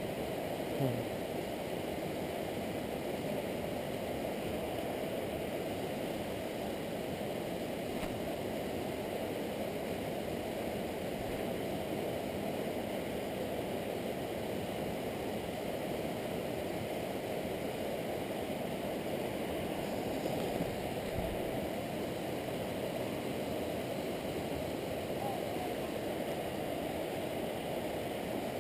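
Steady rushing of river water flowing over shallow rapids.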